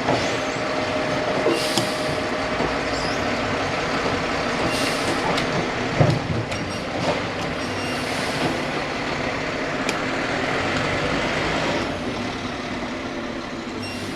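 Garbage truck running close by: a steady diesel engine din with a few short hissing bursts, easing off a little near the end.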